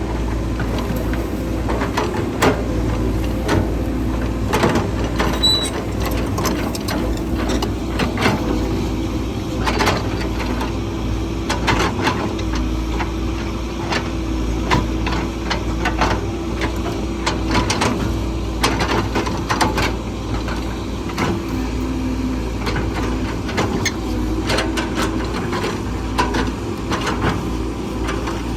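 Heavy diesel construction machine running steadily, with frequent irregular metallic clanks and knocks over the engine drone.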